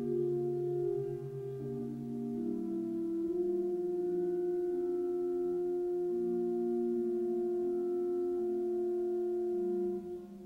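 Organ playing a slow chorale prelude on a soft, pure-toned stop: a high note held for several seconds over slowly moving lower voices, with the chord released about ten seconds in.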